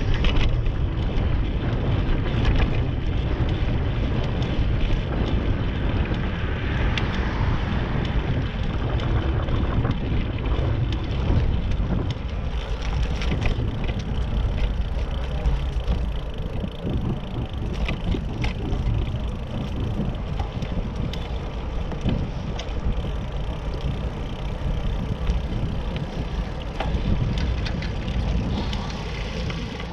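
Wind rushing over the microphone of a camera riding on a moving bicycle, with frequent small knocks and rattles as the bike rolls over rough pavement.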